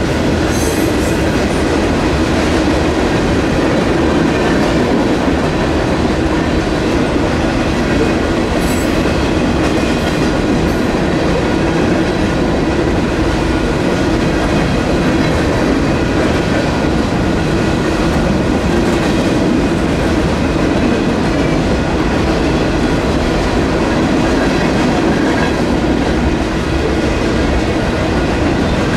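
Freight cars of a long manifest train rolling steadily past at a grade crossing, wheels clicking over the rail joints, with the crossing's electronic warning bells ringing over the rumble.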